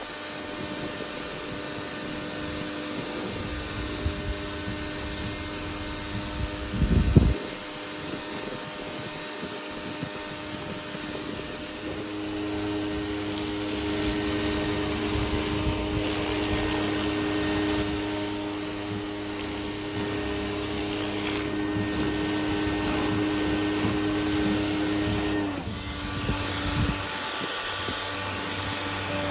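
Gerni 3300 electric pressure washer running, its 1500-watt motor and aluminium pump humming steadily under the hiss of the high-pressure water spray. A brief knock about seven seconds in, and the hum drops slightly in pitch near the end.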